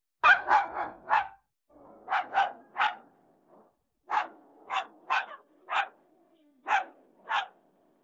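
AI-generated dog barking, synthesized by Meta's AudioGen model from the text prompt "dog barking": about a dozen short, sharp barks in uneven runs of two to four, with short pauses between the runs.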